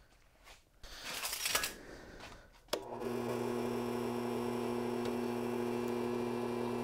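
Faint handling noise, then a click just before three seconds in as a drill press is switched on, its electric motor then running with a steady hum.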